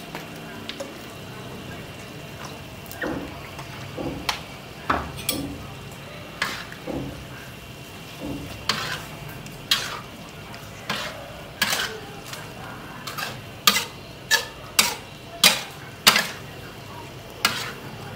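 Shrimp and luffa sizzling in a steel wok while a metal ladle stirs and scrapes against the pan. The scrapes start soft and scattered, then come sharper and faster, about two a second, in the second half.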